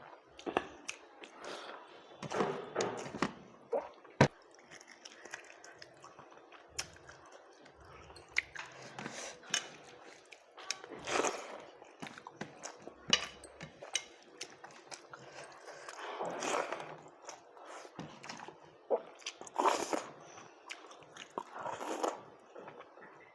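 A person chewing and eating mouthfuls of rice, with irregular short mouth clicks and smacks.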